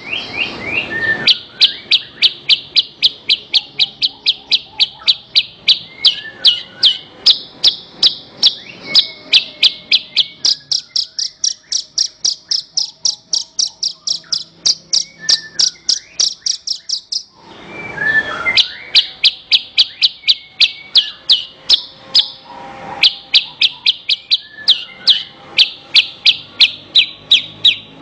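Javan bush lark (branjangan) singing a long run of rapid, evenly repeated high chip notes, about three to four a second. The run is broken twice by a brief noisy burst, about a second in and again about eighteen seconds in.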